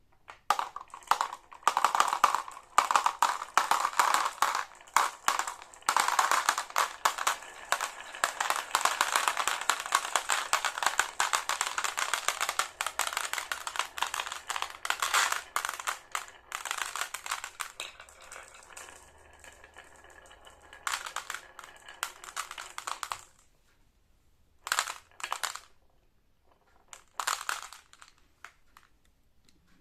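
Marbles rolling and clattering down a marble run track: a dense, busy run of rapid clicks and rattles that dies away after about twenty seconds, then two short bursts of clattering near the end.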